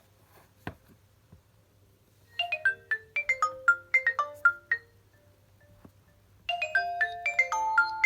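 A Nokia Lumia 520 ringtone playing: a quick run of short high notes starts about two seconds in, breaks off for nearly two seconds, then the phrase starts again. A single click sounds just before it.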